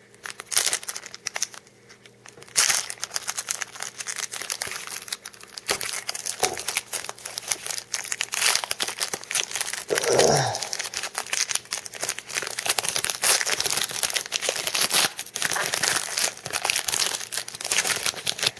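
Foil trading-card pack wrapper crinkling and tearing as a pack is opened and handled, a dense irregular crackle.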